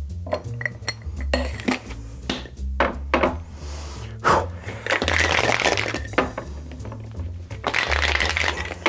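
Ice cubes rattling hard inside a metal cocktail shaker for a gin sour with egg white, starting about five seconds in after several clinks and taps as the shaker tops are pressed on.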